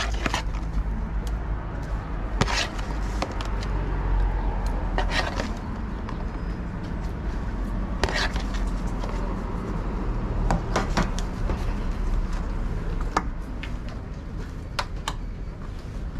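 Metal ladle scraping and knocking against a plastic tray and a steel serving pan as cooked shrimp are pushed into a tray of curry, giving a series of sharp clicks spread out over several seconds. A steady low hum runs underneath.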